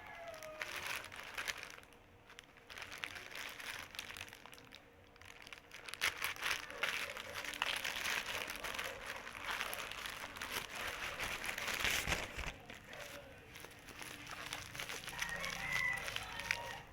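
Parcel packaging crinkling and rustling as it is handled and opened, busiest through the middle of the stretch.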